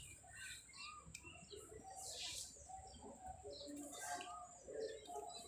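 Faint birds chirping and calling, scattered short calls throughout, with a brief swish of water about two seconds in as a hand moves in the lotus tub.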